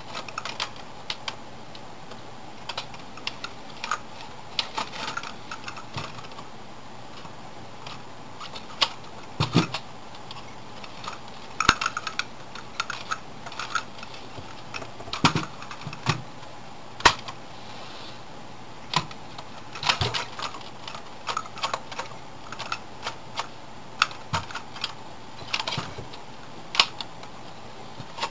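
Plastic toy monster truck being handled and turned over in the hands: irregular plastic clicks and knocks from its body and wheels, over a faint steady hum.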